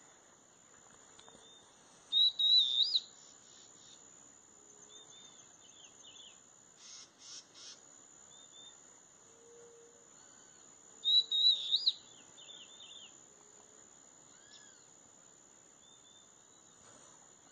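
Bird calls: two loud bursts of quick, warbling whistled notes that rise and fall, about two seconds in and again about eleven seconds in, with softer chirps and a short raspy call between them. A steady high insect drone runs underneath.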